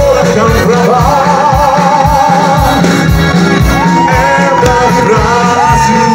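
Live pop music from a band on stage: a singer holds long, wavering notes over a steady beat.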